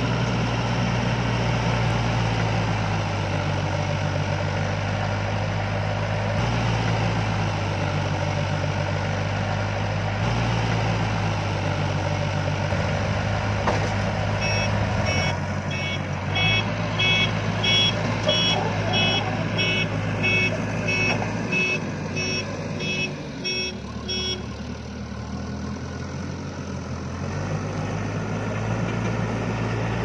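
Diesel engine of a TATA backhoe loader running under load, its pitch stepping up and down every few seconds as the loader works. About halfway through, a reverse alarm beeps steadily, roughly twice a second, for about ten seconds.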